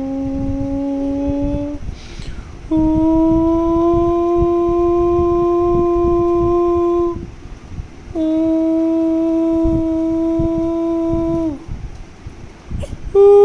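Three long, steady horn-like notes, each held several seconds with short breaks between them; the first creeps up in pitch and the last sags as it cuts off. Faint low knocks sit underneath.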